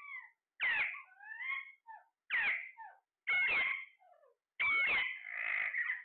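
Alexandrine parakeets calling: about five loud, harsh squawks roughly a second apart, with softer chattering between, the last one drawn out longer near the end.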